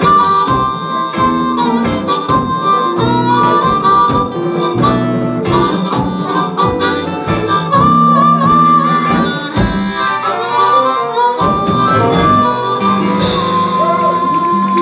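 Live blues band playing a rumba in G: a blues harmonica, cupped against a vocal microphone, plays a wavering lead line over electric guitars, bass and drums.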